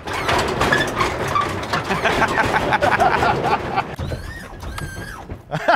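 The competition-motor hydraulic pumps of a 1980 Chevy Monte Carlo lowrider whir as the car's front end is jacked up and dropped to make it hop, with the suspension working. It is a dense mechanical din for about four seconds, then quieter, with a few high squeaks near the end.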